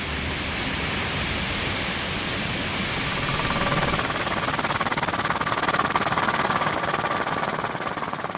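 Steady roar of a large waterfall. About three seconds in it gives way to a steady engine drone with a faint hum, of the kind heard inside an aircraft in flight.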